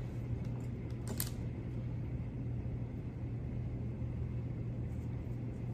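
A steady low hum, with one faint click about a second in.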